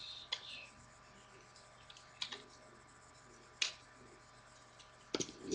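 A few scattered sharp clicks of a plastic Transformers Starscream action figure being handled and swung about, over faint room noise.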